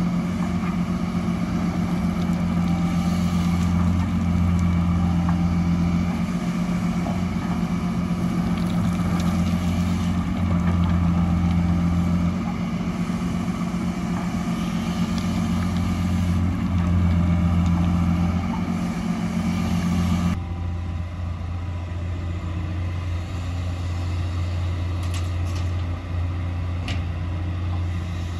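Fiat-Hitachi excavator's diesel engine running under working load, its drone swelling and easing with the work. About twenty seconds in it turns suddenly quieter and duller.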